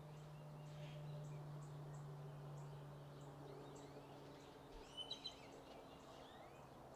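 Faint outdoor morning ambience: scattered bird chirps, with three quick, louder chirps about five seconds in, over a steady distant low drone.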